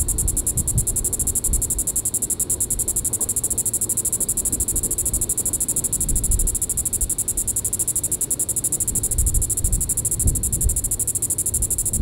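Diceroprocta vitripennis (green-winged cicada) calling: a loud, high, rapidly pulsed buzz held steady without a break, over a low rumble.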